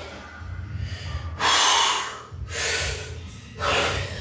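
A man's heavy, forceful breathing: three loud breaths about a second apart, the first the loudest and longest, from the strain of holding flexed bodybuilding poses.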